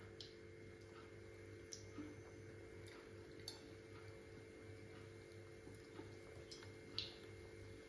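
Near silence: a faint steady hum with a few soft, scattered ticks.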